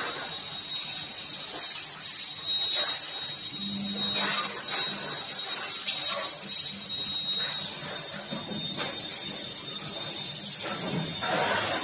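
CNC tube laser cutting machine at work, its assist gas hissing in repeated bursts over a thin, steady high tone.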